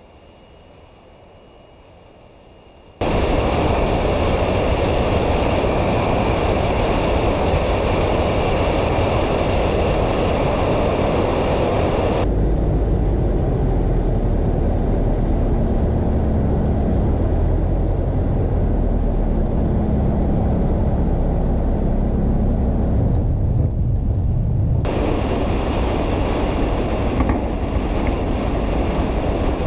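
A light aircraft's steady, loud rumbling noise, engine and rushing air together, that starts suddenly about three seconds in and changes character abruptly twice.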